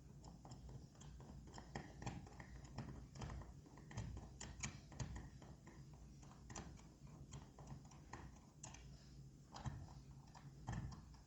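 Manual screwdriver backing a long screw out of a smart door lock: faint, irregular clicks and taps of the driver tip and hand working the screw.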